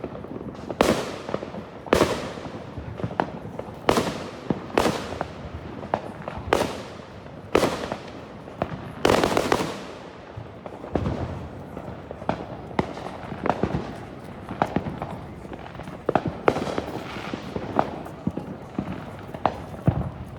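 Consumer fireworks going off: a run of loud bangs about a second apart, each with a fading tail, for the first half, then a quicker scatter of smaller crackling pops.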